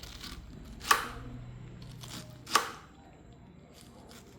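Knife chopping through pineapple: two sharp chops about a second and a half apart, with a lighter cut just before the first.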